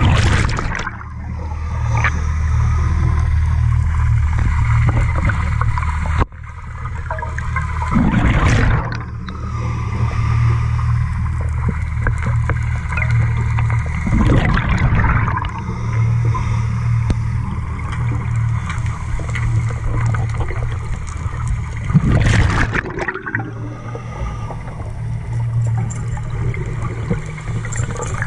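Scuba regulator breathing heard underwater through a GoPro housing: gurgling bursts of exhaled bubbles about every seven to eight seconds, four times, over a steady low hum.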